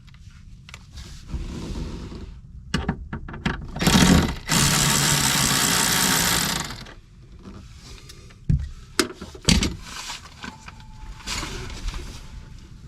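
Clicks and knocks of hand tools working on the inverter's positive cable terminal nut, with a loud, even noise lasting about two seconds midway.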